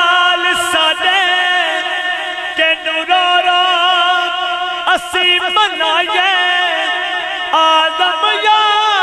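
A man singing a Punjabi lament into a microphone, holding long, wavering notes with melodic runs between them.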